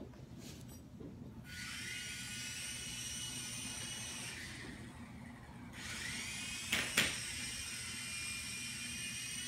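Small electric rotor motors of an Air Hogs Axis 200 toy drone whining at high pitch: they spin up about a second and a half in, cut out after a few seconds, then spin up again. A couple of sharp knocks come around seven seconds in.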